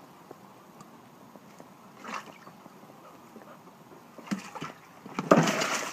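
A dog scrambling in a flexible plastic tub of water, with a short knock and then, near the end, a loud splash and slosh of water as the tub tips over.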